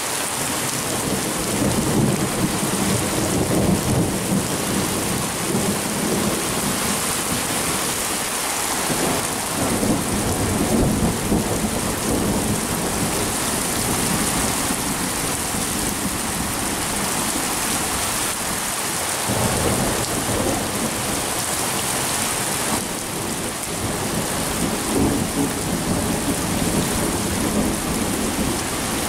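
Thunderstorm: steady heavy rain with long rolls of thunder rumbling. The thunder eases and swells again twice.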